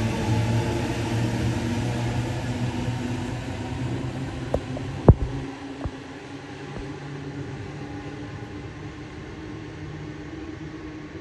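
Light rail vehicle's steady electric hum, with several level tones, fading over the first half. A few sharp clicks come around the middle, the loudest a single knock; a quieter steady hum follows.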